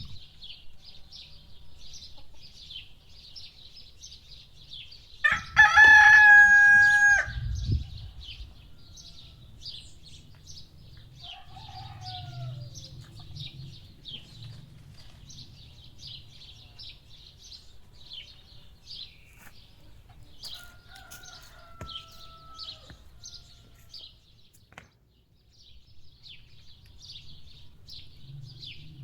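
A rooster crows once loudly, a call of about two seconds, over the steady twittering of many small birds. Two fainter, shorter crowing calls come later.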